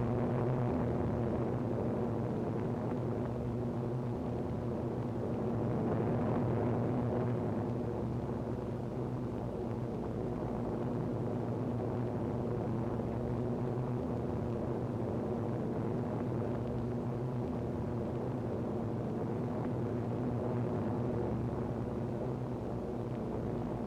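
Piston aircraft engines running steadily in flight, a constant hum that swells slightly about six seconds in.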